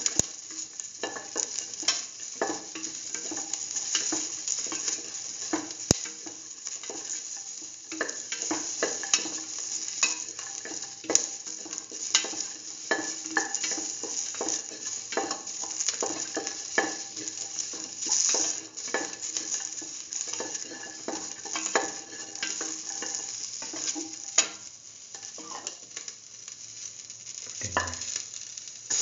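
Green bell pepper pieces, shallots and garlic sizzling in hot oil in a metal pan while being stirred, the utensil clicking and scraping against the pan over and over.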